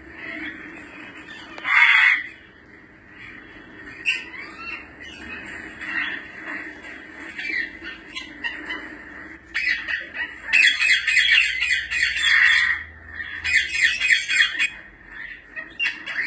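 African grey parrots calling: a loud call about two seconds in, then scattered short whistles and chirps, then two long bursts of harsh squawking chatter in the second half.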